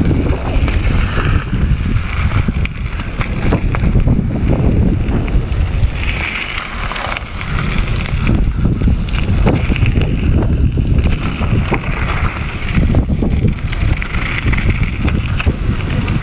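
Wind buffeting an action camera's microphone on a mountain bike descending fast, with the tyres rolling over loose gravel and dirt and the bike clattering over bumps.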